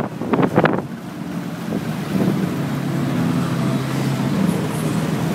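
Steady engine hum of street traffic with wind buffeting the microphone on a moving motorbike. A few sharp knocks come in the first second.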